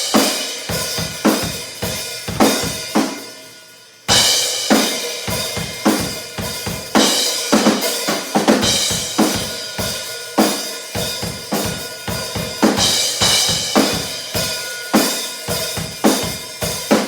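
Drum kit played: bass drum, snare, hi-hat and cymbals in a steady run of strokes. About three seconds in the playing stops and a cymbal rings out and fades. About four seconds in it comes back in with a loud crash.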